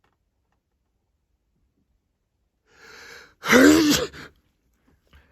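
A person sneezing hard: a sharp breath drawn in about three seconds in, then one loud voiced sneeze.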